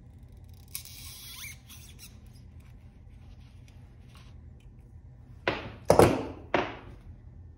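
Pliers working a small metal fitting loose from a snowmobile carburetor part, with a brief scraping squeak about a second in. Near the end come three short, loud hissing puffs, each dying away quickly.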